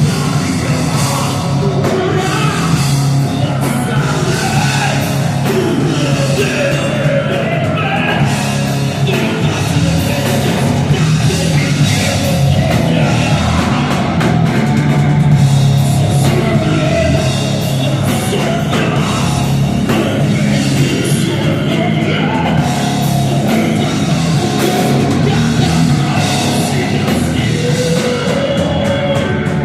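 Heavy rock band playing live at full volume: a loud, steady wall of amplified instruments with a drum kit and a singer.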